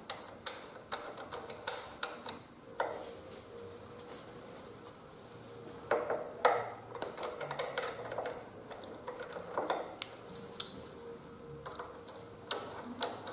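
Irregular light metallic clicks and taps from handling the aluminium Givi S902A handlebar phone mount and turning its clamp screw with a screwdriver, with a few louder knocks about three and six seconds in.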